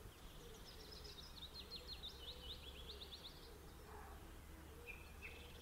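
Faint birdsong in a quiet outdoor ambience: quick runs of short, falling chirps, then a thin steady high note coming in near the end.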